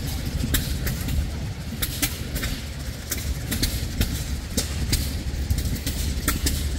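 A low, steady engine rumble with irregular sharp clicks over it.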